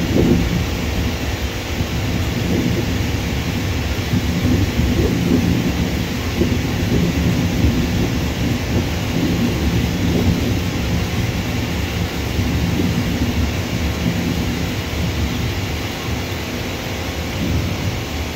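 Low, continuous rumble of jet airliner engines around an airport apron and runway, with a faint steady hum under it.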